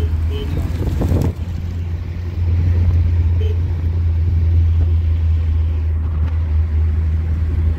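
Car interior noise while driving: a steady low rumble of engine and road, with a brief rustle about a second in.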